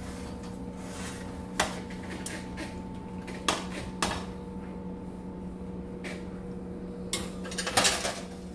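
Metal sheet pan and wire rack clattering as they are handled, with the oven door pulled open about halfway through. A cluster of louder metallic clanks comes near the end as the pan slides onto the oven rack. A steady low hum runs underneath.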